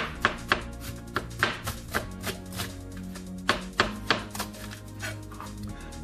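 Chef's knife chopping a red onion on a plastic cutting board: a run of sharp knife strikes against the board, with background music.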